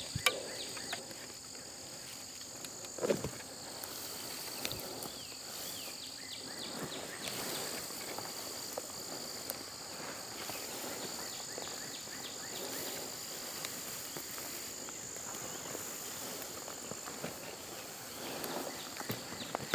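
Insects buzzing steadily at two high pitches, with footsteps swishing through tall grass and one sharp knock about three seconds in.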